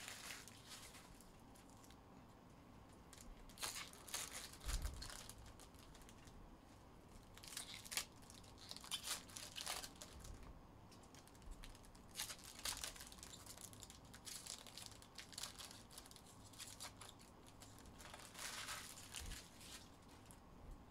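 Foil trading-card packs being worked open by hand: faint crinkling and tearing of the foil wrappers in short bursts, about half a dozen times, with quiet gaps between.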